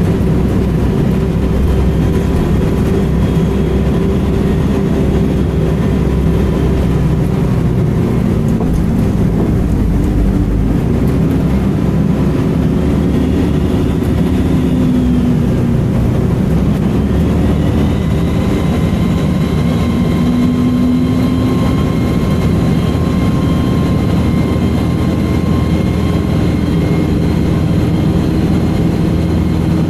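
Volvo B10M bus running, its diesel engine and road noise making a steady loud rumble, with a high-pitched screech coming and going over it: once early on for several seconds, briefly in the middle, and again from a little past halfway, rising in and then holding steady.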